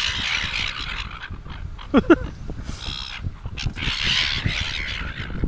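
A flock of seagulls squawking harshly in overlapping calls as they squabble over chips. The loudest is a short, sharp call about two seconds in.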